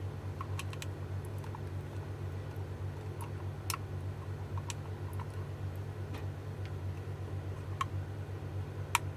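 Scattered small clicks and taps from handling small parts and tools on an e-bike battery pack, over a steady low hum. The sharpest click comes near the end.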